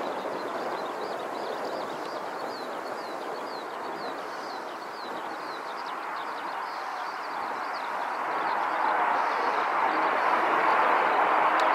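Mitsubishi F-2 fighter's single jet engine at takeoff power on the takeoff roll: a steady rushing jet noise that grows louder over the last few seconds as the aircraft comes closer. Short bird chirps come through over it in the first half.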